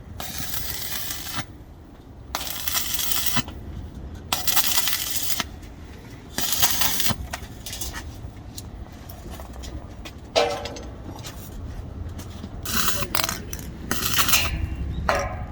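Electric arc welding on a stainless steel frame corner: the arc crackles and hisses in a series of short bursts about a second long, with pauses of about a second between them, as in tack or stitch welds. After the fourth burst come quieter, irregular noises.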